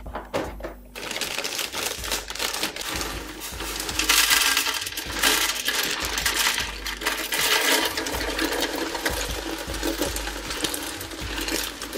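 Strawberry Cheerios being poured out: a continuous rattle of many small, dry pieces of cereal falling and landing. It starts about a second in and is loudest around four seconds in.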